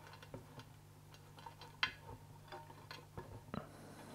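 Scattered light clicks and taps of a xaxim fern-wood piece being handled and fitted into a small glass tank, the loudest about two seconds in and another about three and a half seconds in, over a faint low steady hum.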